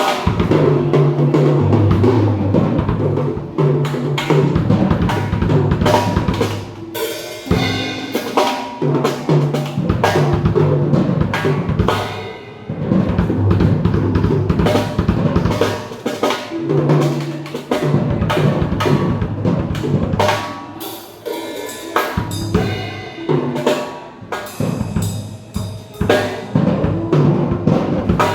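Pearl Roadshow acoustic drum kit being played: beats and fills across snare, bass drum and toms, with cymbals ringing out in places.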